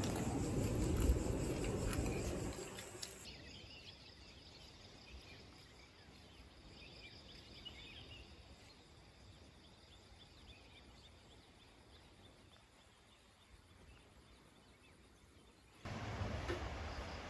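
A steady low rumble that fades away over the first few seconds, then quiet countryside ambience with faint bird calls. Near the end the steady wash of sea surf starts suddenly.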